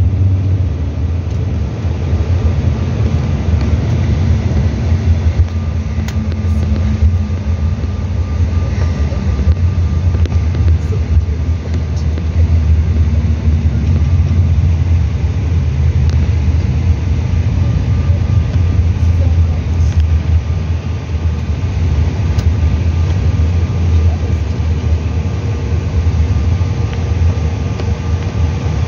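Steady low rumble inside the cabin of a Bombardier CRJ900 rolling along the runway and taxiway just after landing: its wheels run on the pavement and its rear-mounted CF34 turbofans run. A faint low engine tone slowly falls and fades over the first several seconds.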